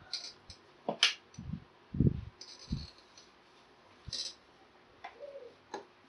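Dry-erase marker drawing on a whiteboard: short raspy squeaks of the tip on the board, with scattered clicks and light knocks against the board.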